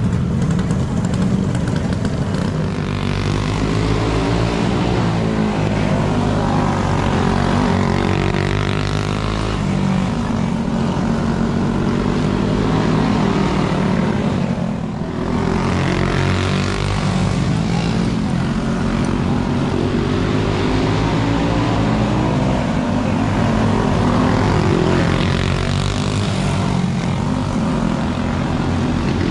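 Several go-kart engines racing on a dirt flat track, their pitch rising and falling as the karts accelerate and back off through the turns. The sound dips briefly about halfway through.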